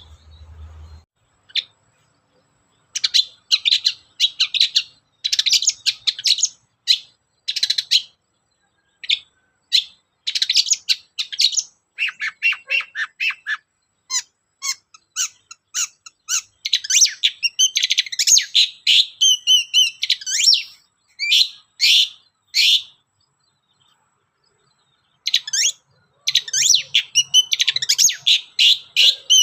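Long-tailed shrike (cendet) singing loudly in fast bursts of rapid, chattering notes, with a pause of about two seconds near the start and another shortly before the end.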